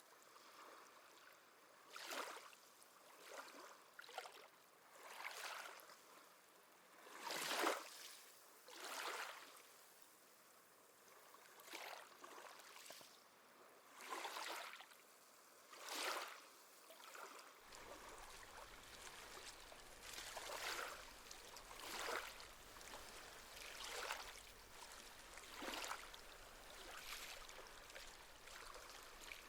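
Small sea waves lapping and splashing softly at the shore, one short splash every second or two.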